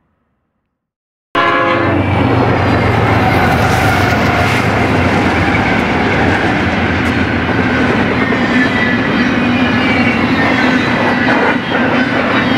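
BNSF freight train passing close by: a loud, steady rumble of wheels on rail with clattering cars. It starts abruptly about a second in.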